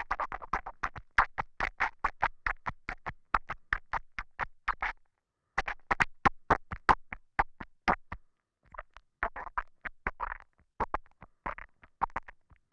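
Wet saliva clicks and mouth smacks picked up close by a lavalier microphone: a rapid run of sharp little clicks, about five a second, broken by short pauses about five and eight seconds in.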